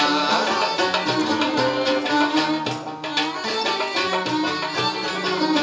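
Live North African ensemble playing an instrumental passage: a violin bowed upright on the knee carrying the melody over a plucked lute and a hand-played frame drum keeping a steady beat.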